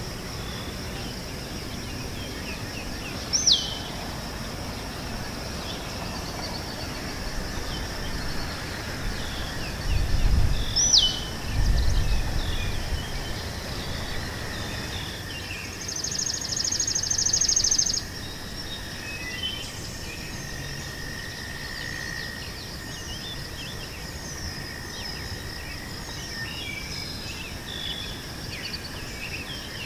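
Meadow ambience: a steady high-pitched insect drone under bird calls. A bird gives a loud, sharply falling whistle twice, a buzzy trill sounds for about two seconds past the middle, and scattered twittering chirps follow. A brief low rumble comes in just before the middle.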